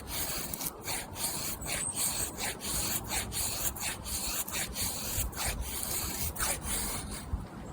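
Small bushcraft knife by Pietro shaving thin curls along a wooden stick to make a feather stick: repeated rough scraping strokes, about two a second.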